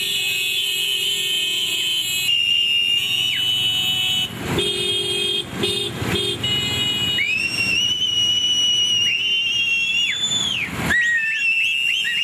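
Motorcycle engines running in a moving procession, with three short horn honks about four seconds in. After that comes a long, high, shrill tone held for about three seconds, then a string of quick rising chirps near the end.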